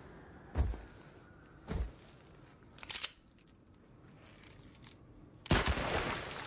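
Four gunshots spread over several seconds, the third thinner and higher-pitched. The last is the loudest and trails into about a second of noisy clatter.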